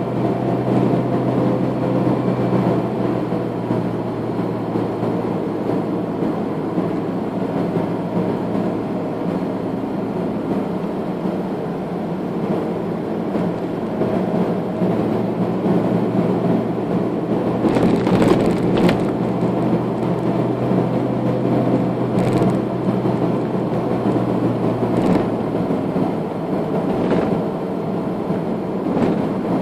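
Car driving on an asphalt road, heard from inside the cabin: a steady engine hum and tyre noise, with a few short knocks in the second half.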